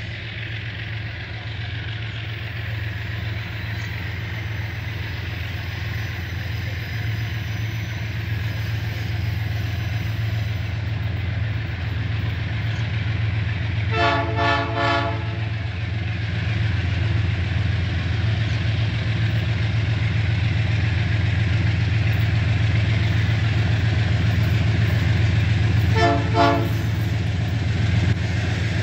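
Approaching freight train hauled by GE U20C diesel-electric locomotives: the engines' low drone grows steadily louder, and the horn sounds in short blasts about halfway through and again near the end.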